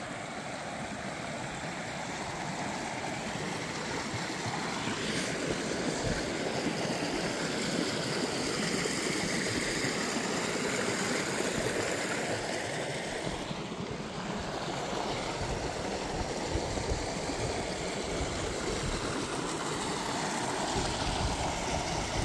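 Mountain creek rushing over rocks: a steady, unbroken noise of flowing water, growing a little louder over the first several seconds and then holding.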